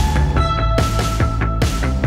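Loud background music with a steady drum beat, strong bass and held high notes.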